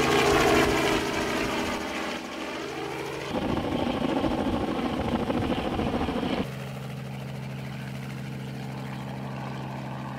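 Helicopter hovering close overhead while lifting a sling load: a steady rotor and engine drone with a loud rush of rotor wash. The sound changes abruptly about three and six and a half seconds in, settling into a steadier, quieter hum.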